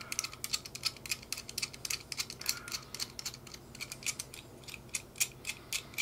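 Number wheels of a Master Lock Pro Series 1177 four-wheel combination padlock spun with the fingers: a quick, irregular run of light clicks as each wheel snaps from number to number.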